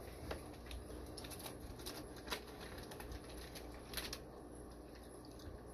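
Quiet handling noise from bagged fish being unpacked: a few faint, scattered clicks and light rustles over a low steady hum.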